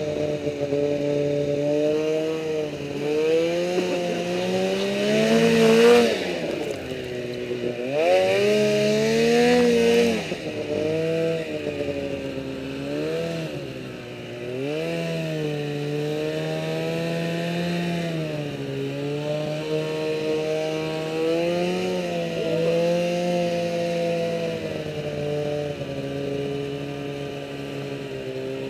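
Snowmobile engine running under throttle, its pitch rising and falling as the rider accelerates and eases off. It is loudest in a surge about six seconds in, surges again a few seconds later, then holds a steadier pitch.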